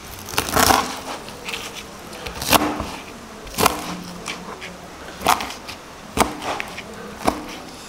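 A kitchen knife cuts through roast pork belly with a crispy crackling skin on a cutting board. It gives sharp crunching clicks as the blade breaks the crackling and strikes the board, about six cuts roughly a second apart.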